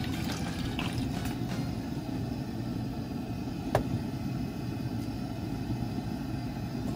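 Steady low rumble of a propane camp-stove burner running under a wok of bubbling liquid, with one sharp click a little past halfway.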